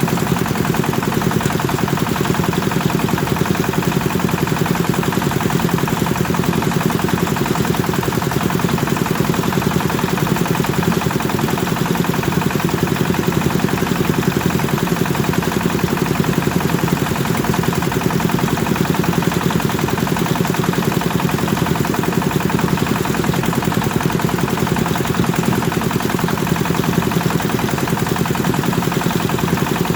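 Kubota single-cylinder diesel engine running steadily at a fast, even chug, driving a rice thresher.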